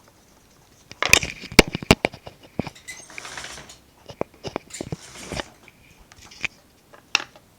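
Sharp clicks and taps, then short scratchy scrubbing strokes, as a toothbrush is worked against a phone's screen.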